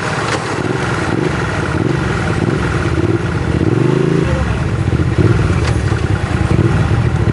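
Hyosung Aquila GV250 (Kasinski Mirage 250) 250 cc V-twin running through its new aftermarket exhaust while being ridden. About four seconds in, the engine revs up with a rising pitch, which drops off suddenly; the engine then runs on slightly louder.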